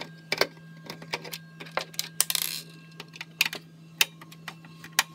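Irregular sharp clicks and light metallic clatter of desktop computer parts and case being handled, with a short scrape a little past halfway. A steady low hum runs underneath.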